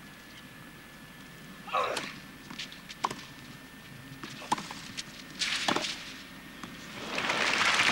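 Tennis rally on a clay court: a racquet strikes the ball with a sharp pop every second or so. Near the end the crowd breaks into rising applause as a forehand passing shot wins the point.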